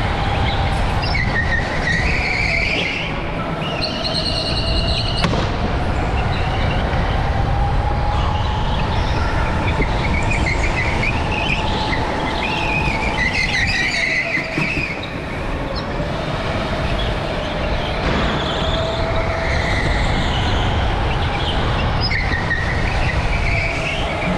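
Go-kart driving hard around an indoor track: the motor's pitch rises and falls with speed over a constant rumble, and the tires squeal briefly every few seconds through the corners.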